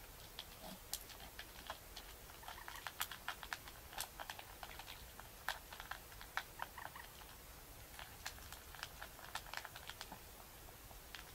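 An animal eating dry food from a stainless steel bowl: faint, irregular crunching and clicks of food and teeth against the metal, several a second, coming in spells.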